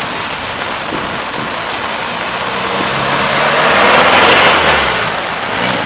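Steady heavy rain, with a Ford pickup truck driving through floodwater close by: its engine hum comes up and the rush of water thrown off its tyres swells to a peak about four seconds in, then eases.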